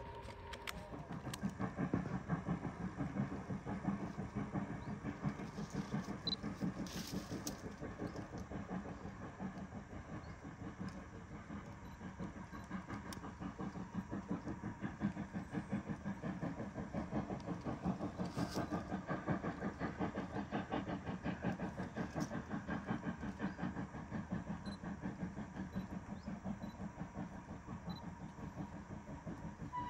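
Steam locomotive working under steam, its exhaust beating in a rapid, regular chuff that swells and eases slightly as it passes.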